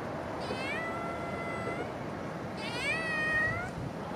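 Tabby cat meowing: two long, drawn-out meows about two seconds apart, each rising in pitch and then held.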